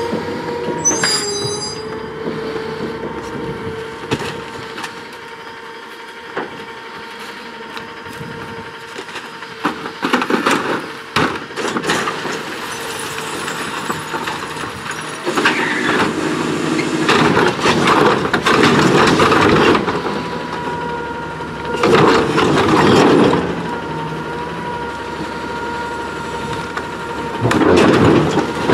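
Rear-loader garbage truck running with a steady whine while bags and boxes are thrown into the hopper with scattered thuds. Through the middle the packer runs louder for several seconds, compacting the load, and near the end a recycling cart is dumped into the hopper with a loud clatter.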